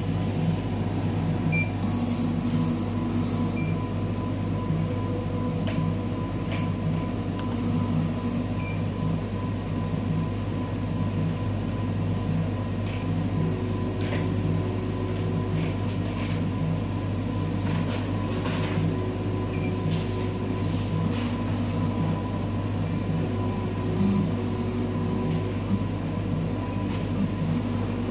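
Electrolyte analyzer running a measurement cycle: a steady mechanical hum with a regular pulsing beat, typical of its pump drawing the sample through the electrodes.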